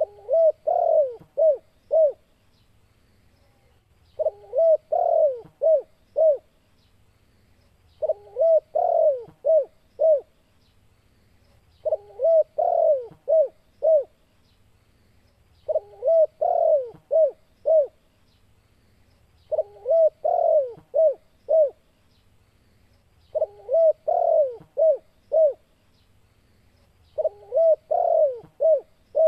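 Spotted dove (tekukur) cooing its 'kuk 2' call type: a phrase of five or six coos, the first one longer and the rest short and evenly spaced, repeated about every four seconds.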